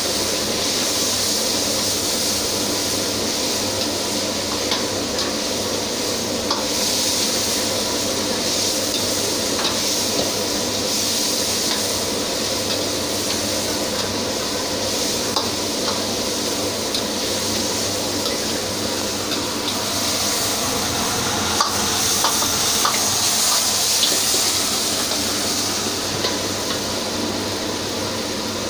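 Stir-frying in a wok over a gas burner: steady sizzling of food in hot oil, with the metal ladle clicking and scraping against the wok now and then, over a steady hum.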